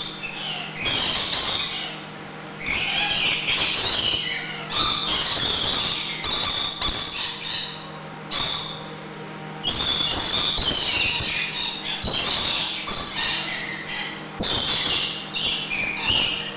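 Lorikeets screeching, a string of harsh squawks one after another with short gaps between them, close to the microphone.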